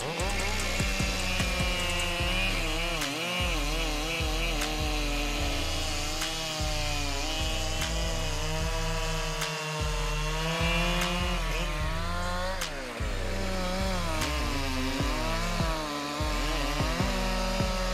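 Two-stroke chainsaws cross-cutting large logs at full throttle, the engine note sagging as the chain bites into the wood and climbing again as it frees. The sound changes abruptly a few times as one cut gives way to another.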